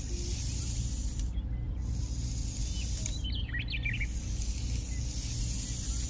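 A fingertip scraping lines through fine, dry sand, a soft hiss in long strokes broken by short pauses. Birds chirp briefly about halfway through.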